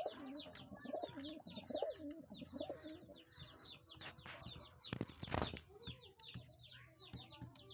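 Angry male khumra pigeon cooing, low warbling calls in the first few seconds, beside his sitting mate, with a brief loud rustle about five seconds in. Quick, high falling chirps of small birds keep going behind.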